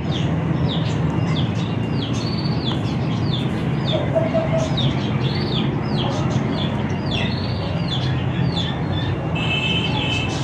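Many caged birds chirping over and over, a dense chatter of short high calls, over a steady low rumble.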